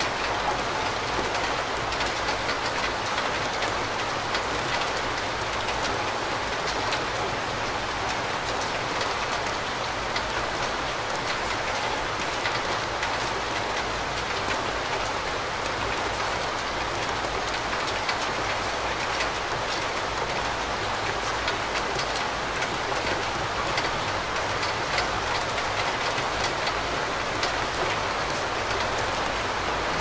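Steady rain: an even, unbroken hiss with individual drops ticking through it.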